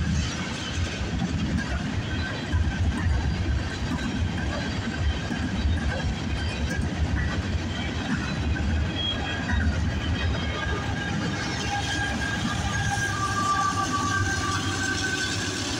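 A freight train passing at close range: tank cars and open hopper cars roll by over the rails with a steady low rumble, and thin high squealing tones grow stronger near the end. Near the end the mid-train distributed-power locomotive, a GE AC44C6M, comes past.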